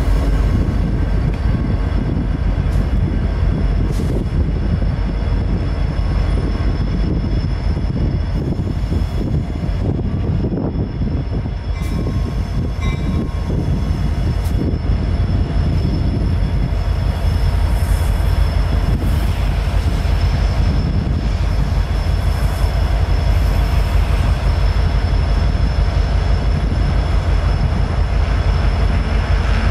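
CN diesel-electric locomotives running close by with a deep, steady engine rumble as they slowly pull a string of gondola cars. A thin steady high whine sits above the engine noise.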